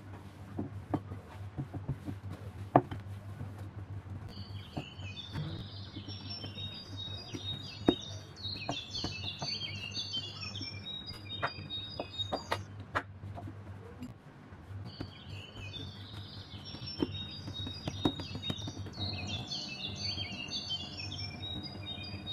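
Small birds chirping and twittering in quick, busy bursts over a steady low hum, with scattered sharp clicks and taps.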